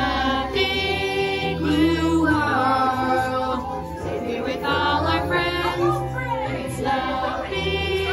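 Recorded music with a choir singing long held notes over sustained low accompaniment, changing chord every second or so.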